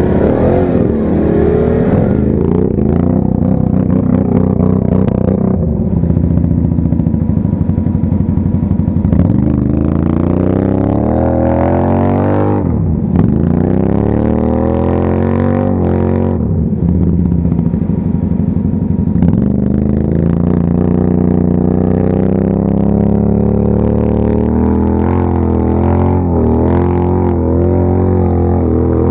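ATV engines running under load through deep, rutted sand, revving up and easing off, with the pitch dipping and climbing again a few times midway.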